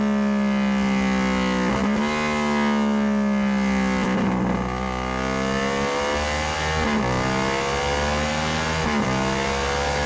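Yamaha YZF-R7's parallel-twin engine running through a Vandemon titanium exhaust with a carbon-fibre muffler. Its revs climb steadily and drop suddenly about two, seven and nine seconds in.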